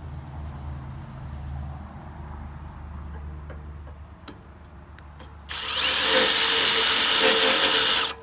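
Milwaukee Fuel cordless impact driver running a self-tapping screw into the metal bracket of a basketball hoop jack, in one loud run of about two and a half seconds. The motor whine rises and then holds steady before the trigger is let go and it stops abruptly.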